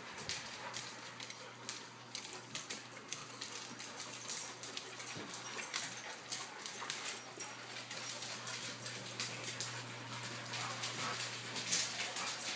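Dogs moving about on a hard floor, their claws making irregular light clicks and taps, over a faint steady hum.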